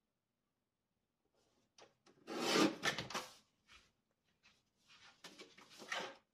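Card stock and papercraft tools being handled, with rubbing and scraping. A few short clicks lead into a loud scraping stretch about two seconds in, and there is more rubbing and rustling near the end.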